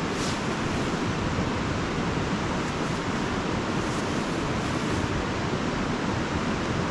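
Steady rushing outdoor noise, even in level throughout, with no distinct events standing out.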